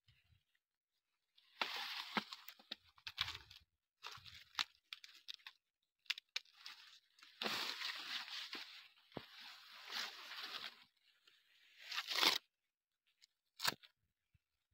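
Dry sugarcane leaves rustling and tearing as they are pulled off a freshly broken cane stalk, in several bursts a second or two long with short pauses between.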